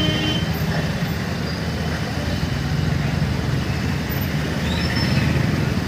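Mixed road traffic crossing the tracks: motorcycle, auto-rickshaw and diesel engines running together, with a steady low engine drone.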